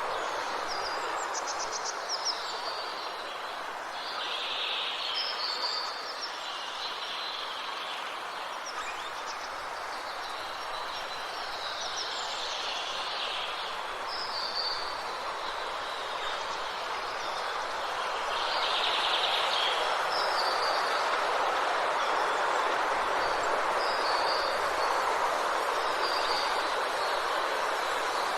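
Steady wind with songbirds singing short repeated phrases and trills over it. The wind grows louder about two-thirds of the way through.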